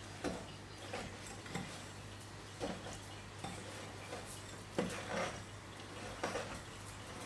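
Crushed Oreo crumbs and cream cheese being stirred by hand in a bowl, with irregular clinks and scrapes of the utensil against the bowl, roughly one every half second to second.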